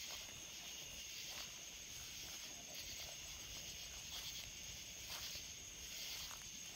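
Steady chorus of night insects, a continuous high-pitched trilling, with a few soft footsteps in grass.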